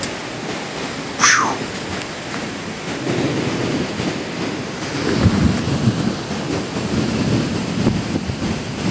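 Thunder rumbling low and building over steady storm noise of wind and rain, following a lightning flash. A short whistle that falls sharply in pitch sounds about a second in.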